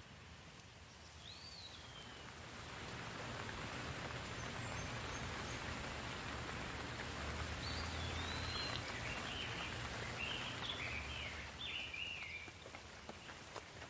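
Steady rain falling, swelling heavier for several seconds and then easing off near the end, with a low rumble under it while it is heaviest. Birds chirp over it, once about a second in and in a run of short chirps in the middle.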